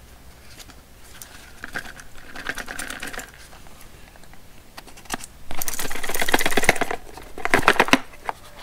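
Retail packaging of a vape tank being handled and opened by hand: cardboard and plastic rustling and scraping. Two spells of loud, rapid crackling come about five and a half seconds in and again near the end.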